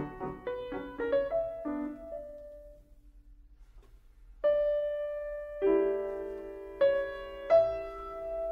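Background piano music: a quick run of notes that dies away, then after a short pause slower, held notes and chords.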